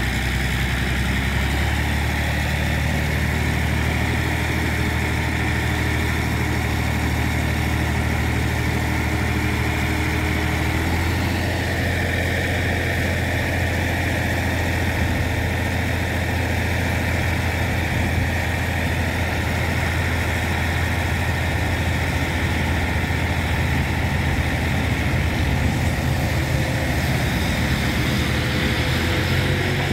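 Massey Ferguson tractor's diesel engine running steadily while its hydraulics tip a trolley loaded with sand. The engine note shifts slightly about eleven seconds in.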